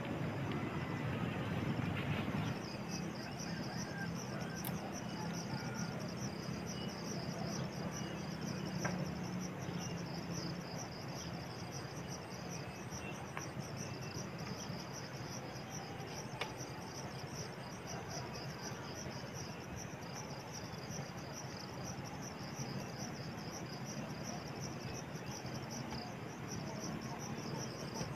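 Insects trilling in a steady, fast-pulsing chorus that sets in a couple of seconds in, over a low rumble that fades after the first several seconds.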